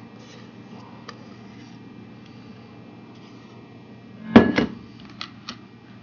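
Spatula scraping and spreading thick brownie batter in a metal baking pan, with faint light clicks over a steady low hum. About four seconds in there is a loud double knock, then two short light clicks.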